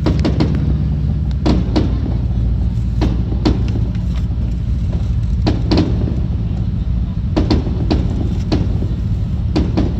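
New Year's fireworks going off in irregular sharp bangs and crackles, about two a second, heard from inside a car over the steady low rumble of the car.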